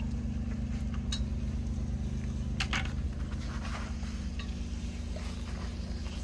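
A steady low motor hum runs throughout, with a few light clinks and clicks of dishes or utensils over it.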